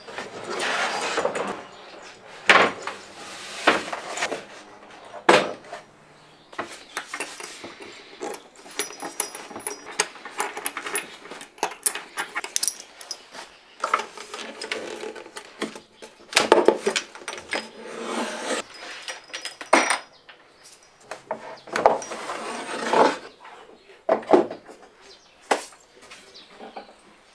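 Irregular wooden knocks, clunks and scraping as plywood cabinet panels and a pine frame are handled and taken apart.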